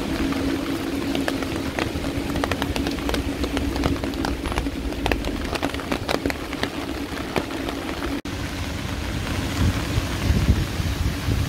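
Heavy rain falling on a city street, with many sharp raindrop ticks close by over a steady wash of rain and a low traffic hum. A vehicle's low rumble swells near the end.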